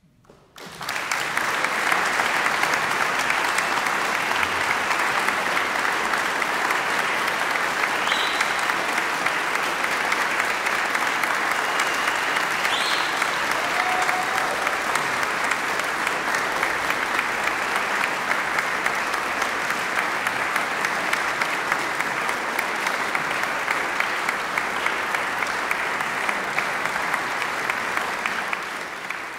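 Audience applauding after a chamber music performance. Clapping breaks out about half a second in, holds as a steady dense patter, then starts to fade near the end.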